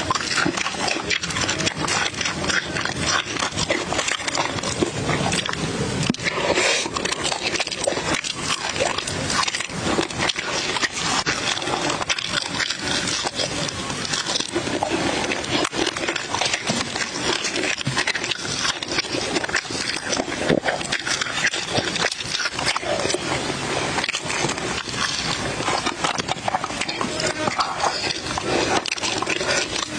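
Close-up chewing and lip-smacking of a person eating charcoal-grilled fish and chili sauce by hand: a dense, unbroken run of wet, crackly mouth noises.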